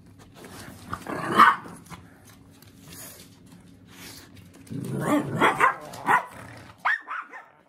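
Dogs barking and growling: one loud bark about a second in, then a run of several barks and growls from about five to six seconds, and a couple more short ones near the end.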